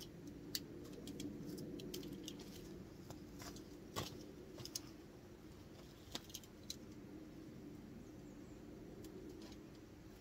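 Wood fire crackling: scattered, irregular sharp pops and clicks over a steady low background noise, the loudest pops about half a second and four seconds in.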